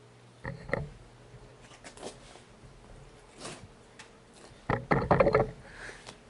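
Handling clatter: a short burst of knocks about half a second in, a few faint knocks, then a louder run of clattering knocks near the end.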